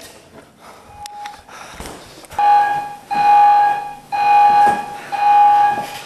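Computer's electronic countdown alarm beeping: a steady, loud tone repeated about once a second, starting about two seconds in. It signals that the countdown is running out and the code must be entered.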